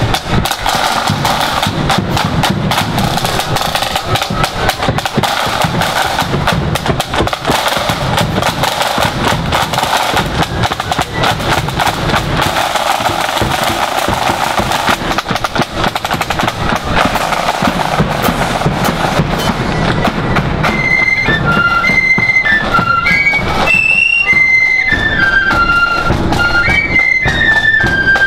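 Marching flute band: snare drums and a bass drum beat out a march with rolls, and about twenty seconds in the flutes come in playing a tune over the drums.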